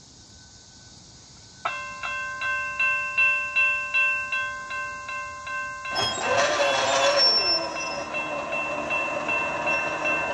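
Railroad crossing warning bell starting up about two seconds in, ringing in fast, evenly spaced strikes. About six seconds in a brief rush of noise joins it, and the ringing then goes on more blurred.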